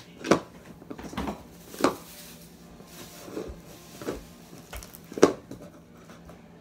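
Clear glitter slime with beads being kneaded and folded by hand in a plastic bowl, giving about six short squishes and air-pocket pops, the loudest shortly after the start, near two seconds and about five seconds in.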